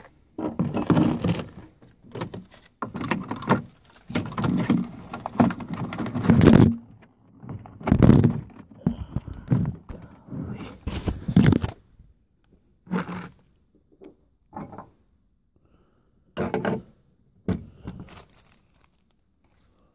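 Irregular knocks, thunks and scrapes of hard objects being handled and moved about, with some clattering. Busy for about the first twelve seconds, then a few separate knocks.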